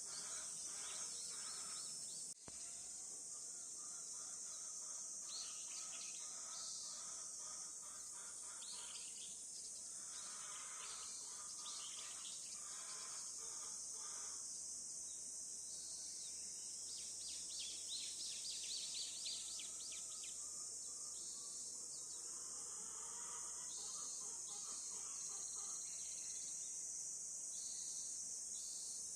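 Insects keep up a steady high-pitched drone while birds call on and off over it, with a run of quick calls about eighteen seconds in.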